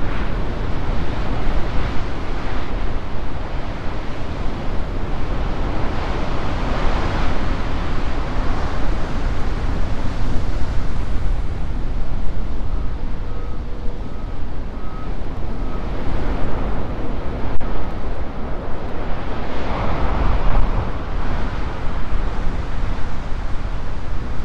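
Heavy storm surf breaking on a rocky shore, a continuous wash of whitewater that swells louder with the bigger waves, about a quarter of the way in and again near the end. Wind buffets the microphone throughout.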